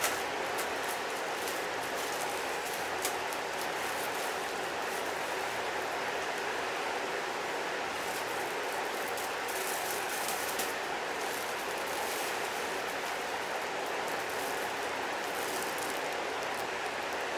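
Plastic courier mailer and foil packaging rustling and crinkling steadily as a parcel is torn open and a packed garment pulled out, with sharper crinkles around the middle.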